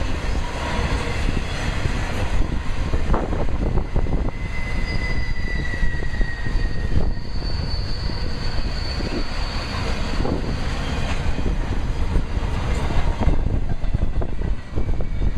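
A train passing, with a steady rumble of wheels on rail and scattered clicks. A thin high squeal falls slightly in pitch in the middle. Wind buffets the microphone.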